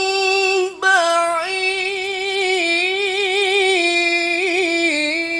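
A male qari's solo voice reciting the Quran in melodic tilawah style, holding long high notes with rapid wavering ornaments. The voice breaks off briefly about a second in, then carries one long phrase that steps down in pitch toward the end.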